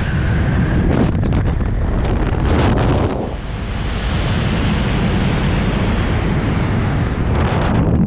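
Wind rushing over the camera's microphone during flight under an open Sabre3 ram-air parachute canopy. The noise is steady, easing briefly about three seconds in.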